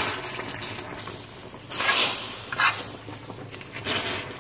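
Hot water poured from a spoon into a pan of hot caramelized sugar, splashing and hissing, with the loudest rush about two seconds in and shorter ones after.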